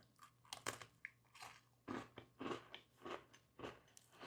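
Biting into and chewing a strawberry crème Oreo cookie: a faint run of irregular crunches, roughly two a second.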